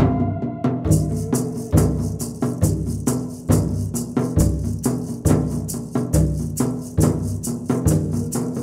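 Instrumental background music with a steady drum beat a little under once a second and held pitched notes; a fast, high ticking pattern comes in about a second in.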